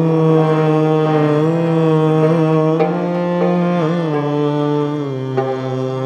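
Sikh kirtan in Raag Kanrha: a man's voice holds a long, drawn-out note with small ornamental turns over a steady harmonium, accompanied by rabab and jorhi drums.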